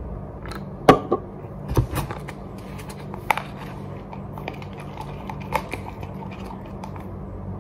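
Wooden stick stirring slime in a plastic cup, knocking against the sides in a few scattered sharp clicks, over a steady low hum.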